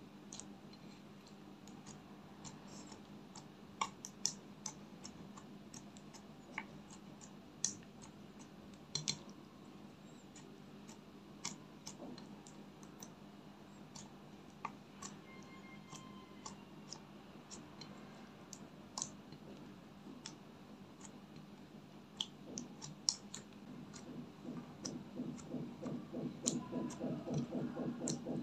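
Glitter slime being kneaded and squeezed by hand in a glass dish: scattered sharp clicks and pops. Near the end it is pressed repeatedly in a fast run of squelches.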